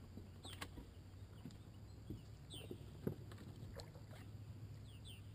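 Quiet sounds of a small fishing boat on calm water: a low steady hum with a few light knocks, the loudest about three seconds in. Short high chirps that fall in pitch come several times.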